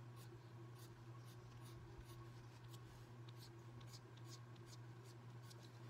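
Faint, light scratching of a coloured pencil drawn softly across watercolour paper, in short irregular strokes a few times a second, over a steady low hum.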